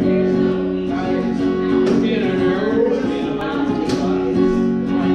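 Acoustic guitar strummed in steady chords, the instrumental intro of a song before the vocals come in.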